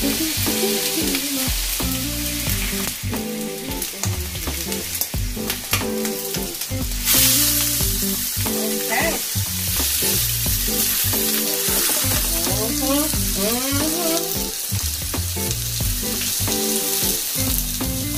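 Diced boneless chicken thighs sizzling in melted butter on a hot griddle pan as they are spread out with a spatula. The sizzle flares up loudly about seven seconds in.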